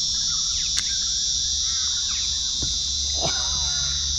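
Steady high-pitched drone of cicadas, with scattered short bird calls over it and a single sharp click just under a second in.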